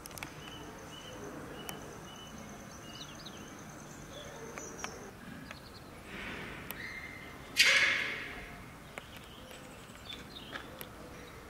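Outdoor enclosure background with thin, high bird-like chirps and whistles, a few light ticks, and one loud harsh burst about two-thirds of the way through that fades over about a second.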